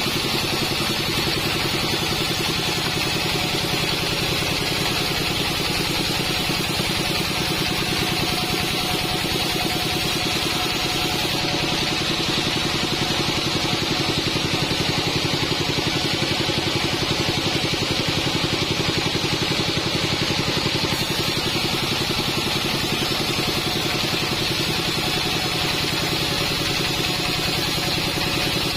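Band sawmill running with a steady mechanical drone and a fast, even pulse, sawing teak.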